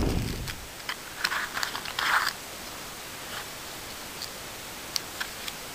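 Small survival-kit items and their packaging being handled by hand: a dull bump at the start, then soft rustling and light clicks for about two seconds, and a couple of faint clicks near the end.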